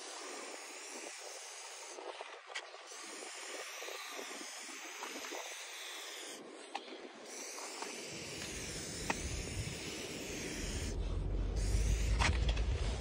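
Aerosol spray paint can hissing as paint is sprayed onto a wall, in long passes with a few short breaks. A low rumble builds from about eight seconds in and is loudest near the end.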